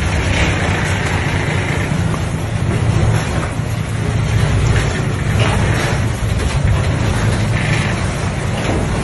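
Diesel engine of a large dump truck running steadily as the truck drives slowly forward, a continuous low rumble.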